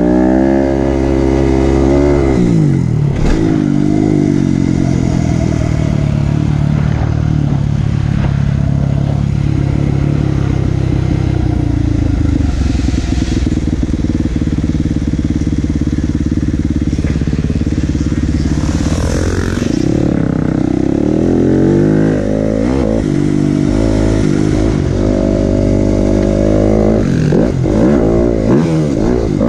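Dirt bike engine heard from on the bike, revving up and dropping back again and again as the rider accelerates and shifts. It runs steadier through a middle stretch and speeds up and slows many times near the end.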